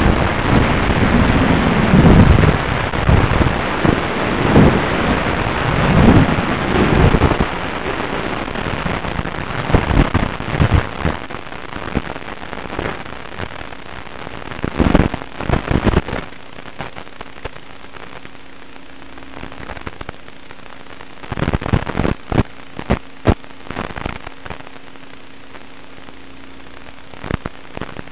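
Rushing, crackling noise on an FPV quadcopter's analog video-link audio: loud through the first half, then dropping after about 16 seconds to a quieter hiss with a steady low hum and scattered crackles.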